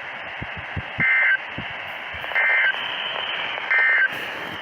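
Weather radio receiver sending three short two-tone data bursts about 1.4 s apart, the SAME end-of-message code that closes a NOAA Weather Radio alert. Steady radio hiss and a few low crackles run underneath.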